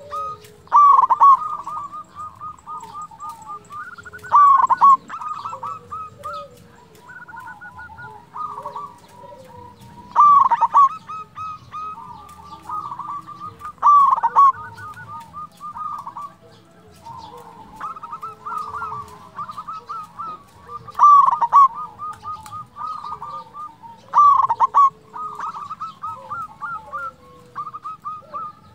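Zebra dove (perkutut) cooing in runs of quick staccato notes, with a louder rolling coo phrase breaking in every few seconds, six times in all. Fainter gliding calls sound underneath.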